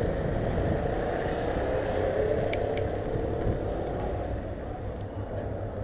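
A bicycle being ridden: a steady rumble of the tyres on the street and on cobblestone paving, with two short high clicks about halfway through.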